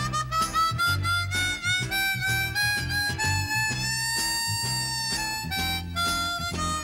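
Closing-credits theme music led by a harmonica playing the melody over a bass line; the tune climbs step by step to a long held note about halfway through.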